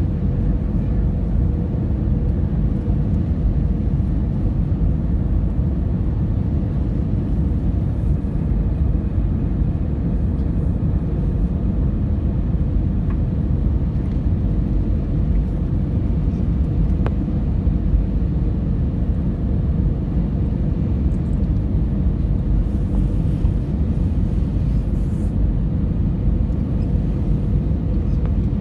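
Steady low rumble of an airliner cabin in flight: engine and airflow noise heard from inside the cabin, with a faint steady hum.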